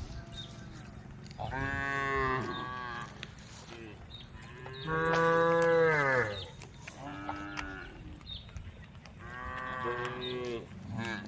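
Cows mooing, calling to the herd: four long calls one after another, the loudest about five seconds in.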